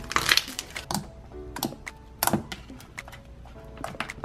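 Translucent pink slime, made from Elmer's color glue and magical liquid activator, squeezed and folded by hand, giving off a run of sharp clicks and pops as air is pressed out: a clicky slime. The loudest cluster of pops comes in the first half second. Quiet background music plays under it.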